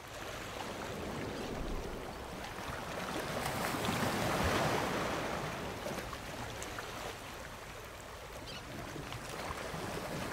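Sea ambience: waves washing on the shore with some wind, a steady wash that swells about halfway through and eases off again.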